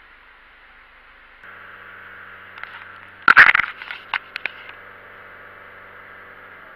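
Mitsubishi Colt engine idling while warming up, with a steady hum coming in about one and a half seconds in. Around the middle comes a short burst of loud knocks and clatter, the loudest sound, typical of the camera being handled.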